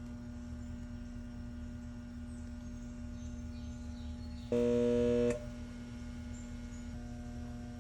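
Outdoor air-conditioner condenser unit humming faintly with its fan and compressor not running. About halfway through comes a short, loud burst of hum, under a second long, as the unit tries and fails to start. The owner traces this to a bulging capacitor that has probably gone bad.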